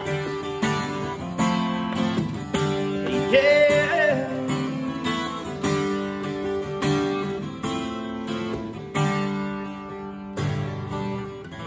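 Country song's instrumental outro on strummed acoustic guitar, steady chord strokes with a short gliding note about three and a half seconds in. A last strummed chord near the end is left ringing out.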